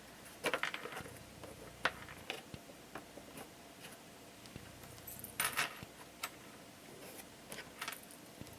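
Light clicks and taps of thin wooden pieces as a piece is worked into its slot in a small wooden organizer, coming in scattered short clusters with quiet between.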